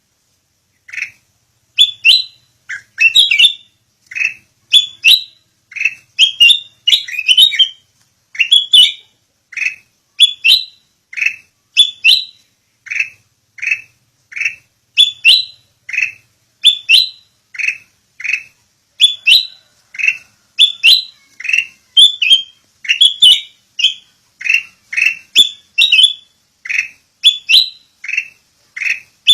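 Sooty-headed bulbul (kutilang) calling: a long run of short, sharp chirping notes, often in quick pairs, about two a second.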